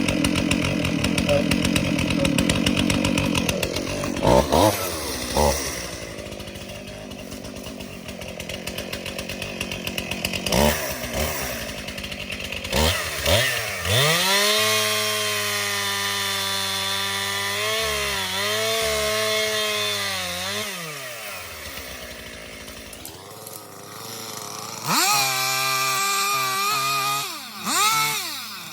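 Two-stroke chainsaw running: a few short revving blips, then held at high revs for several seconds around the middle with the pitch dipping and recovering, then revved up again a few times near the end.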